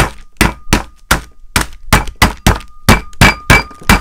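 The flat of a Chinese cleaver slapping down on water chestnuts in a plastic zip bag on a wooden board, crushing them, in a steady run of blows about three a second. Each blow has a faint metallic ring from the blade.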